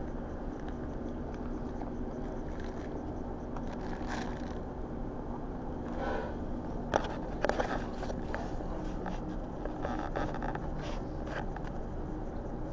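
Steady low room hum with scattered crinkling and scraping handling noises from paper food wrappers and things moved on a table, sharpest about seven seconds in.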